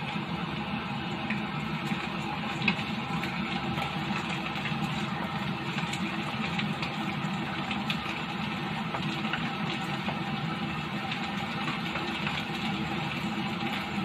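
Stir-frying in a wok: food sizzling over a steady motor-like hum, with a wooden spatula scraping and now and then clicking against the pan.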